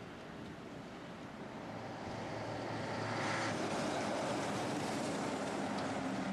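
Heavy diesel truck with a drawbar trailer driving past close by: engine hum and tyre noise grow louder about two seconds in and stay loud as it goes by.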